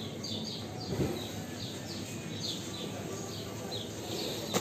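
Squeaking wheel of a plastic shopping cart being pushed: short high chirps repeating about two to three times a second as the wheel turns, with a thump about a second in and another near the end.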